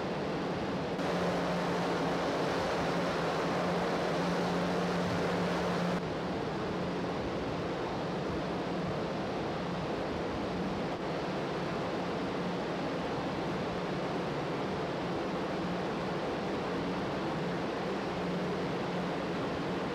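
Steady rushing of wind and water past a car ferry under way, over the low steady drone of the ship's engines. A louder stretch from about one to six seconds in starts and stops abruptly.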